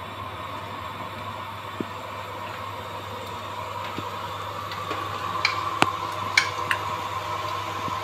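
A metal spoon scraping and clinking against a perforated steel skimmer as stiff nimko dough is pressed through it over hot ghee. A few sharp clinks come in the second half, over a steady low hum.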